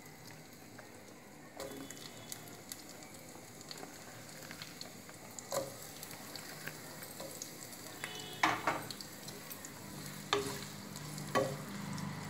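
Sliced onions frying in hot oil, a steady light sizzle and crackle, with a spatula stirring and knocking against the pot several times.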